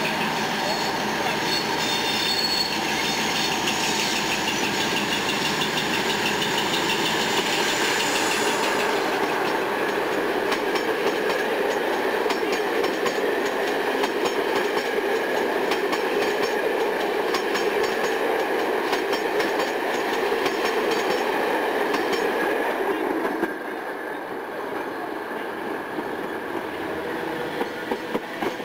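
Class 47 diesel locomotive's Sulzer twelve-cylinder engine running under power as it hauls a passenger train past, followed by the coaches rolling by with clickety-clack over the rail joints. About three-quarters of the way through the sound drops to a quieter rail rumble.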